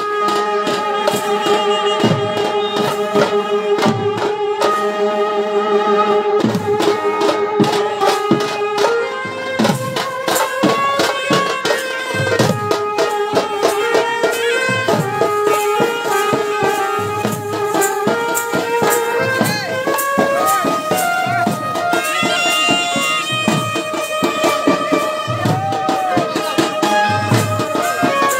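Traditional desi band music: several dhol drums beaten in a fast, driving rhythm, with a wind instrument playing a sustained, wavering melody over them.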